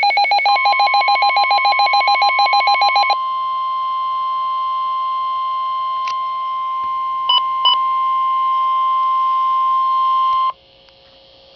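NOAA Weather Radio warning alarm tone: a single steady high tone of about 1050 Hz that holds for about ten seconds and then cuts off sharply, signalling a tornado warning broadcast. For the first three seconds it is overlaid by rapid pulsing beeps, and two short beeps sound about seven seconds in.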